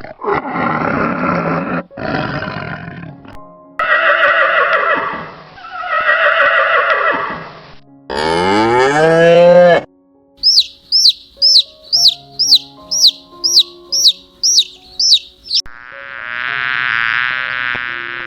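A sequence of farm animal calls over background music: several long calls, then one rising call, then a run of about a dozen quick high chirps at roughly two a second, and another long call near the end.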